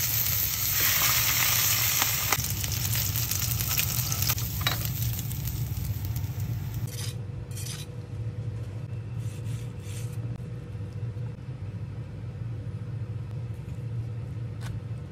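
Sea bream fillet sizzling skin-down in hot oil in a frying pan, a loud, even sizzle that cuts off abruptly about seven seconds in. A steady low hum runs underneath throughout.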